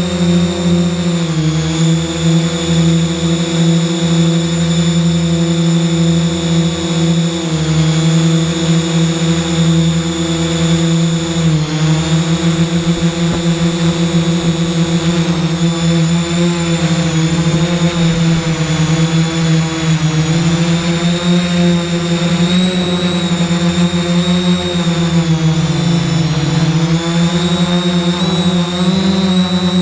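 3DR X8 coaxial octocopter's electric motors and propellers humming steadily, heard from its onboard camera, with a high motor whine over the drone hum. The pitch dips and recovers several times as the throttle changes.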